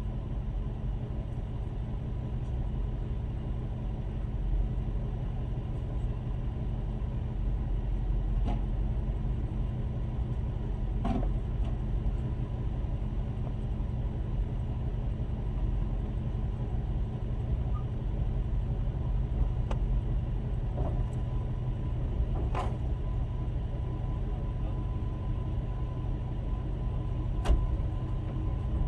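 Steady low rumble of a motor vehicle, with a few faint clicks scattered through it.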